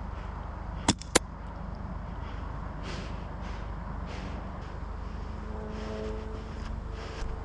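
Two sharp airsoft rifle shots about a quarter second apart, about a second in, over a steady low rumble of wind and movement on the microphone.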